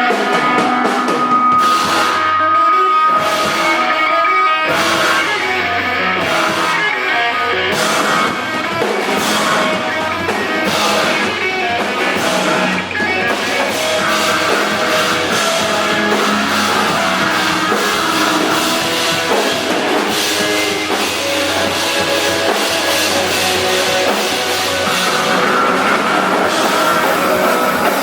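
Live math-rock band playing, with electric guitars and a drum kit. A held high note rings over the guitars for the first four seconds or so, then the full band carries on with steady drum hits.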